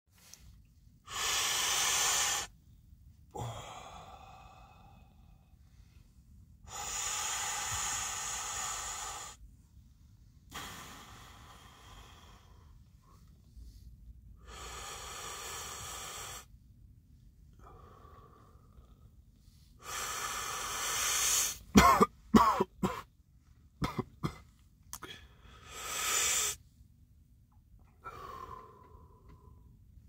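A cigarette smoker taking long breathy drags and exhaling smoke, about five puffs a few seconds apart. About two-thirds of the way through comes a fit of sharp, loud coughing: a smoker's cough.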